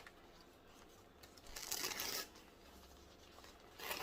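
Paper packaging rustling as a plant is unwrapped, in two short bursts, one in the middle and one near the end.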